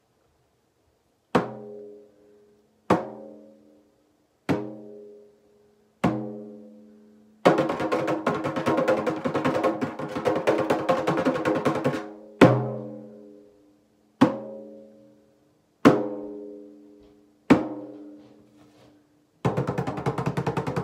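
Hand drum struck slowly, four single ringing beats about a second and a half apart, then a fast continuous roll for about four and a half seconds, then four more slow beats, and a fast roll again near the end: alternating slow and fast tempo.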